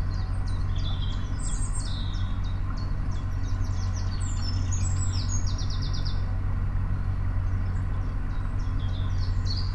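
Small birds chirping and singing in the canal-side trees, with a quick trill about halfway through, over the steady low throb of the narrowboat's engine heard from the bow.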